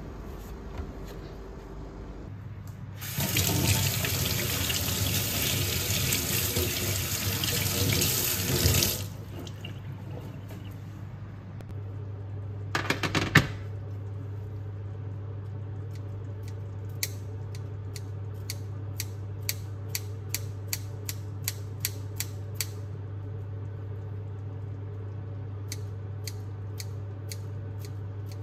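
Kitchen tap running into a sink for about six seconds, then shut off. Afterwards there is a short clatter, then a steady low hum with a run of light clicks.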